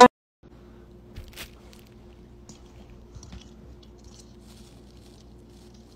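Loud music cuts off abruptly at the very start. Then faint room tone with a steady low hum, and a few soft crinkles and taps about a second in.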